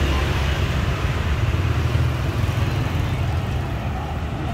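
Steady low rumble with an even hiss above it: continuous background noise with no distinct single event.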